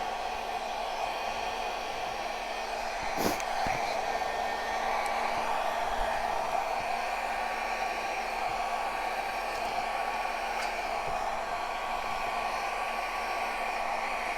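Handheld blow dryer running steadily, blowing wet poured acrylic paint across a canvas, with one brief click about three seconds in.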